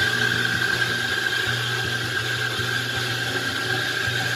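Espresso machine steam wand running: a steady high-pitched squeal over a hiss.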